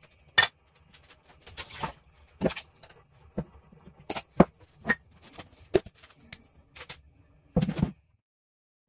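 Scattered sharp clicks and knocks of kitchen utensils, about a dozen, with a short scrape near two seconds in and a longer clatter near the end.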